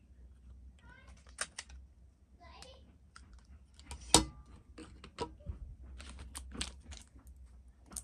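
Scattered small clicks and taps from handling a Zippo lighter and its accessories, with one sharp click about four seconds in.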